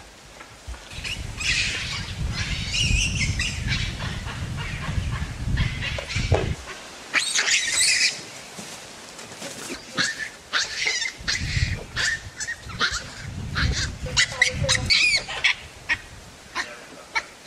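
Troop of baboons calling: many short, high-pitched cries overlapping and coming in flurries. A low rumble comes and goes underneath.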